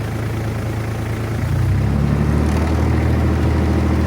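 Engine of a farm vehicle about 20 years old running; about one and a half seconds in its note rises and gets a little louder as it is revved.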